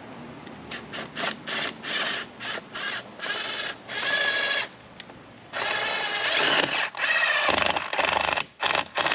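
A cordless drill motor whining in quick short trigger pulses, about three a second, then in three longer runs of a second or more each.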